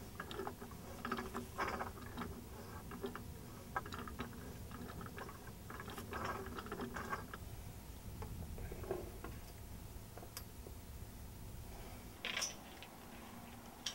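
Pipe wrenches gripping and turning galvanized steel pipe: irregular metallic clicks and scrapes as the jaws bite and the pipe turns, with one louder scrape near the end.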